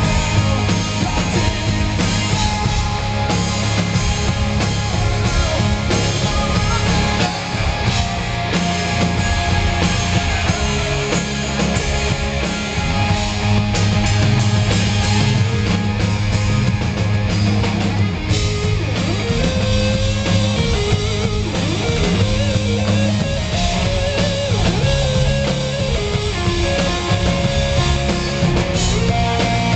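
Live rock band playing loud, with distorted electric guitars over a drum kit, recorded from the audience. There is no singing: a lead electric guitar line bends and wavers in pitch through the second half.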